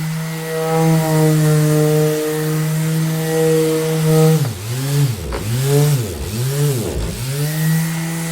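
Electric orbital sander running with a steady motor hum. About halfway through, its pitch dips deeply and climbs back three times in a row, then holds steady again.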